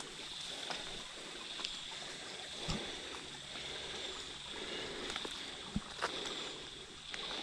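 Distant firefighting helicopter running, heard as a faint, steady noise as though about to take off, with a few light ticks over it.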